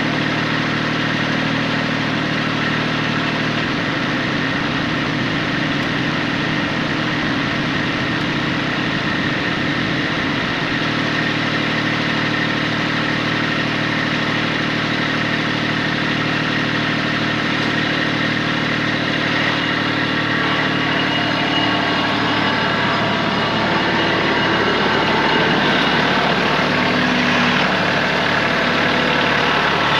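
Kubota tractor's diesel engine running steadily. Its note shifts a few times and grows a little louder near the end.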